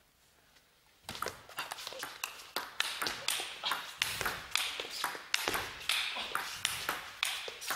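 A table tennis rally: the celluloid ball clicking quickly off the bats and the table, starting about a second in after near silence, each hit ringing briefly in the hall.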